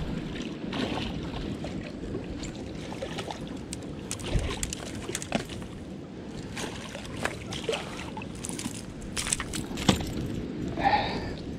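Hooked northern pike splashing at the water's surface as it is reeled in and landed, with scattered sharp clicks and knocks of handling, more of them in the second half.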